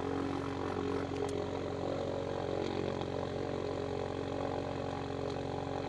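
Lake Amphibian's pusher engine and propeller running steadily, heard inside the cockpit while the hull taxis through the water.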